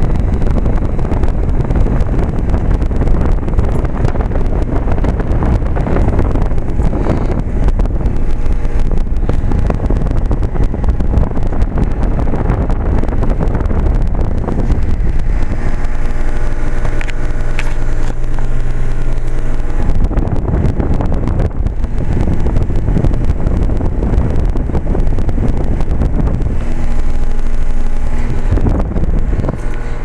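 Trane XL20i heat pump's outdoor unit running in cooling on its low stage (about 1.5 tons): the condenser fan's discharge air gives a loud, steady rumble and buffets the microphone. A steady hum from the Climatuff reciprocating compressor comes through about halfway in and again near the end.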